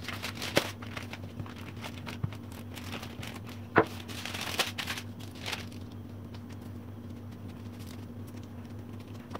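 Sheet of baking paper crinkling and rustling as hands press it down on a slab of date halwa and peel it away, with a few sharp crackles, the loudest about four seconds in. After about five and a half seconds the paper goes quiet, leaving a steady low hum.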